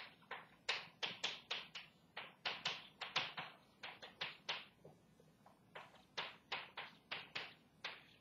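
Chalk tapping and scratching on a blackboard as words are written: a quick run of short strokes, about three or four a second, with a brief pause about five seconds in.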